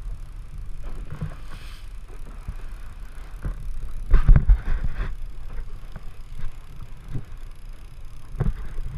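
Charter fishing boat's engine running steadily at low speed, with irregular knocks and clicks on deck; the loudest cluster of knocks comes about four seconds in, another near the end.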